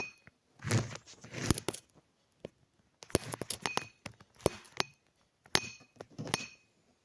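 Kitchen utensils and containers being handled and set down: a string of sharp knocks and clinks in irregular groups, several with a short ringing note, and brief scraping between them.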